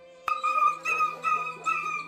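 A dog crying out in pain with a rapid run of short, high-pitched yelps, about four a second, as it struggles while caught in a shade cloth's rope. A sharp click comes about a quarter second in.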